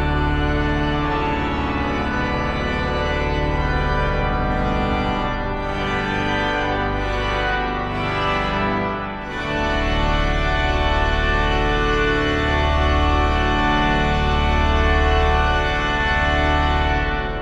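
Organ music: slow, sustained chords over a deep bass.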